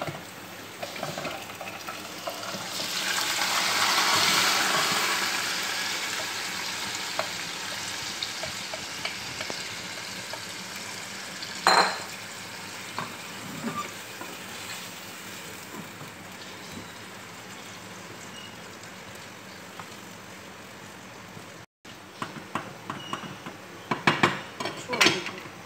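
Marinated minced meat (keema) sizzling as it goes into hot oil and fried onion in a saucepan; the hiss swells a few seconds in and slowly dies down, with a single knock midway. Near the end a wooden spatula stirs it, clicking and knocking against the pan.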